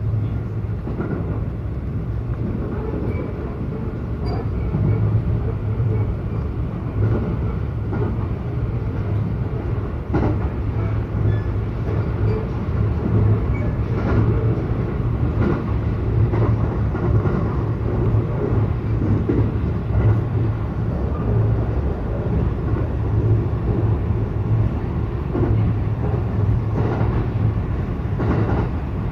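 Local electric train running at speed, heard from inside the carriage: a steady low rumble of wheels on rail, with a few faint clicks now and then.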